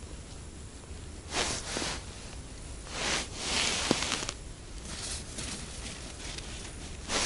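A string of short, soft rustles and crunches at irregular intervals, from clothing and snow as an ice angler jigs at his hole, with a single sharp click about four seconds in.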